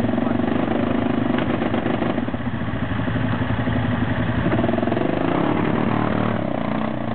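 ATV engine running under load as the quad climbs a muddy slope with its wheels spinning. The engine note eases about two seconds in, then builds again.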